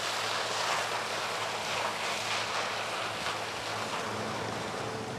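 Sugarcane harvester working through standing cane, its engine a steady low hum under an even wash of cutting and machinery noise, with wind on the microphone.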